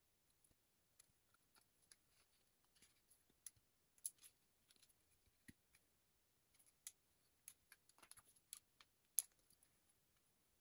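Faint, irregular clicks and light knocks of plastic pipe pieces and a metal pipe elbow being handled and pushed together, the sharpest click about nine seconds in.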